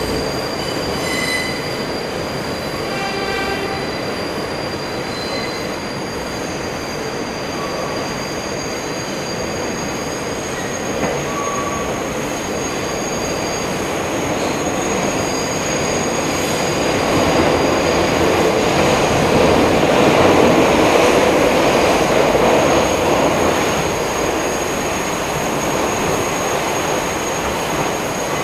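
Bombardier R142 subway car running through the tight South Ferry loop curve, heard from inside the car: the rumble of the train with steel wheels squealing on the rails in steady high tones. The noise swells louder about two-thirds of the way through, then eases.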